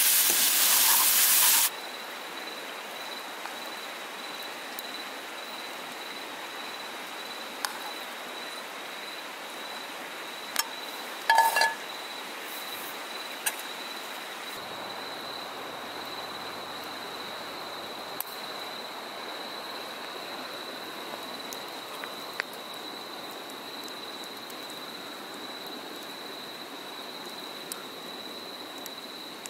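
Mushrooms sizzling in a frying pan over a gas camp stove, cutting off about two seconds in. After that, a low steady background hiss with a continuous high insect trill, a few faint clicks, and one brief clink about midway.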